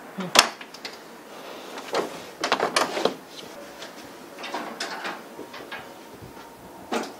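Scattered sharp clicks, light knocks and rustles of objects being handled, with one sharp click about half a second in and small clusters around two to three seconds, near five seconds and near the end.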